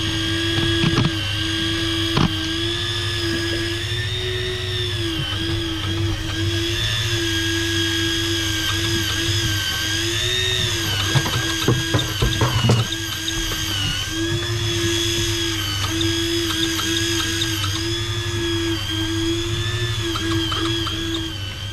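Fishing reel's drag buzzing as a hooked fish pulls line, the whine wavering in pitch and breaking off briefly now and then, over a steady low hum, with a cluster of clicks about halfway through.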